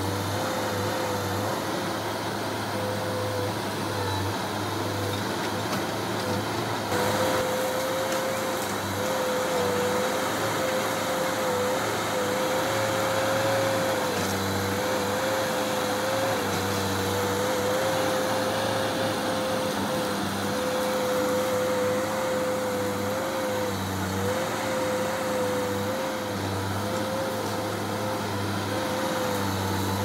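Heavy diesel earthmoving machinery running steadily, with a high whine that wavers slightly in pitch; the sound gets a little louder about seven seconds in.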